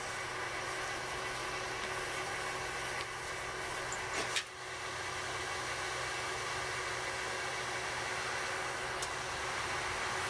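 Steady whirring hum of the wood-gas generator's blowers, with a brief louder puff about four seconds in.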